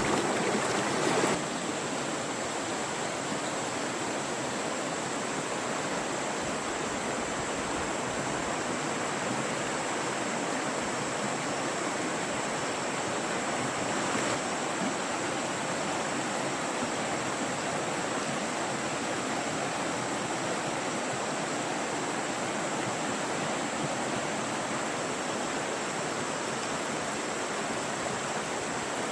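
Fast-flowing stream water rushing in a steady, unbroken wash.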